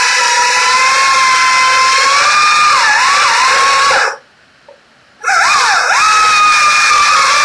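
Chainsaw with a freshly hand-filed chain running flat out and cutting wood, giving a steady high whine. Its pitch sags about three seconds in as the saw bogs under load. It stops for about a second just past the middle, then starts again and its whine climbs back up.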